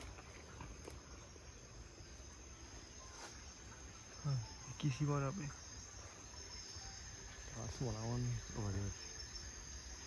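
Night insects, crickets, keeping up a steady high-pitched trill. A voice speaks briefly twice, about four and eight seconds in.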